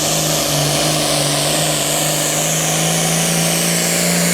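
Turbocharged diesel engine of a Super Farm class pulling tractor running hard at high RPM during a pull: a loud, steady drone with a high whine slowly falling in pitch over it.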